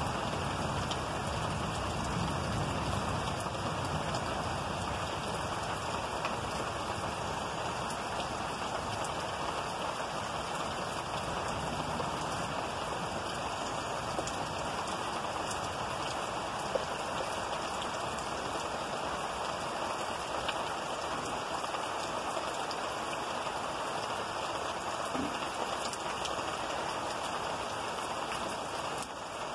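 Steady rain falling during a thunderstorm, an even hiss of drops. The tail of a low thunder rumble fades out in the first few seconds.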